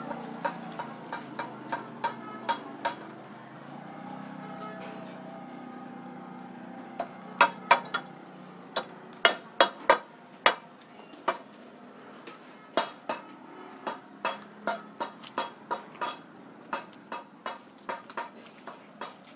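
Repeated sharp knocks or taps, about three a second, over a low market background. They stop for a few seconds after the opening, then resume and are loudest near the middle.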